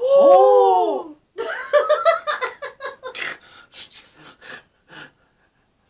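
People laughing while eating cheese corn puffs: a loud, drawn-out cry whose pitch rises and then falls, then laughter in quick pulses that dies away over about four seconds.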